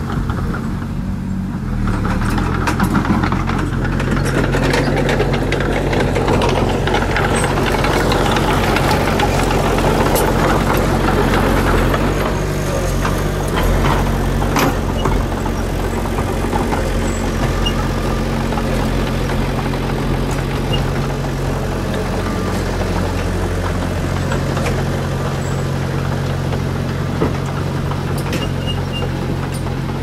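Crawler bulldozer's diesel engine running steadily, its pitch shifting a few times, with rattling and crackling through the first half as the dozer pushes through brush.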